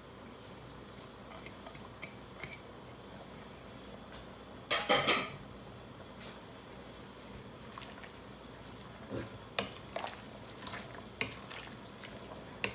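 A pot of broth simmering with a faint steady hiss. About five seconds in comes a short, loud clatter of a dish knocking on the pot as mushrooms are tipped in. From about nine seconds a wooden spatula knocks now and then in the pot as the vegetables are stirred.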